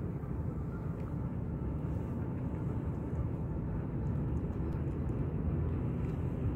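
Steady low outdoor rumble, with a few faint clicks from a cat crunching dry kibble.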